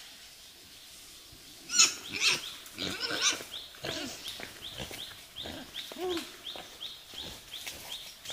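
Small black pig grunting and squealing in a series of short calls, starting about two seconds in. A high chirp repeats about three times a second behind the calls.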